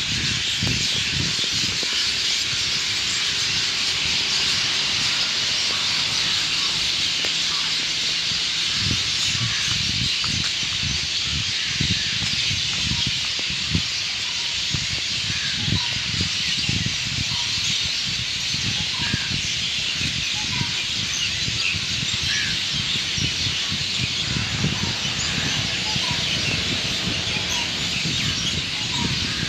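Dawn chorus: many birds chirping and calling at once in a dense steady wash, with single short calls picking out above it. Irregular low rumbles of wind on the microphone run underneath.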